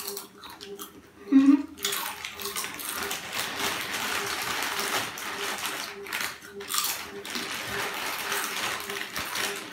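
Lay's chip packets crinkling as they are handled and opened, mixed with potato chips being crunched: a dense, continuous crackle that starts about two seconds in. Just before it, a short low hum.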